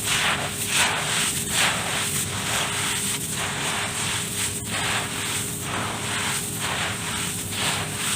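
Hands crumbling and mixing dirt in a tub: a rhythmic crunching rustle, repeated a little more often than once a second.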